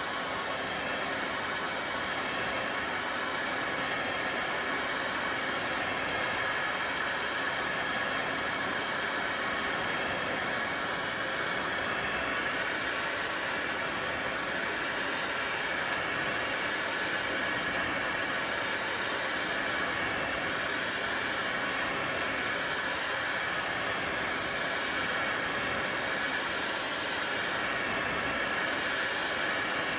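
Electric heat gun running steadily, its fan blowing hot air in an even, unbroken rushing hiss.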